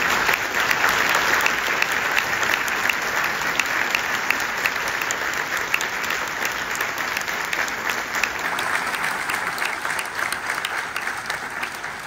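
Audience applauding, many people clapping steadily, growing a little quieter toward the end.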